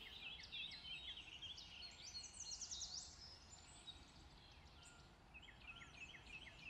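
Faint birdsong: many quick chirps from small songbirds in overlapping bursts. They thin out around the middle and pick up again near the end.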